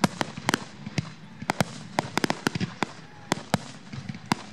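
Aerial fireworks bursting in quick, irregular succession: a rapid string of sharp bangs, several a second.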